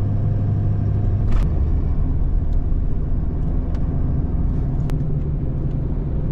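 A road vehicle driving, giving a steady low engine and road drone. There is a short sharp knock about a second and a half in, and a few faint ticks after it.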